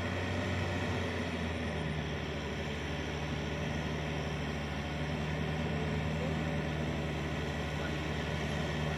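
Yanmar EF 494 tractor's diesel engine running steadily as it works a flooded rice paddy, a low even drone that firms up slightly about two seconds in.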